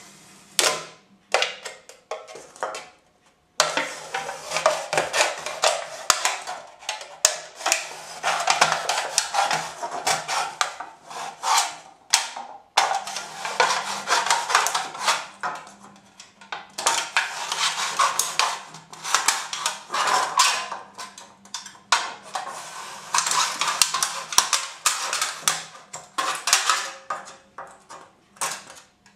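Steel Will Gekko 1510 knife blade scraping, clicking and cutting against a thin aluminium beer can in rapid runs of sharp metallic strokes, with a few brief pauses.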